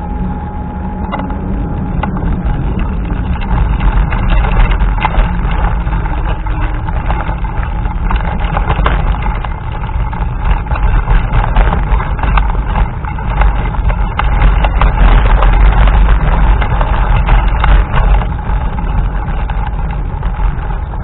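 Wind buffeting the microphone while riding a scooter, with the scooter's motor running underneath; the noise grows louder a few seconds in.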